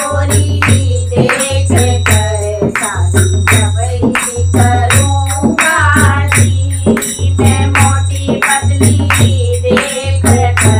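Women singing a banna geet, a Hindi wedding folk song, in unison, accompanied by a dholak played in a steady beat with a deep drum note about once a second.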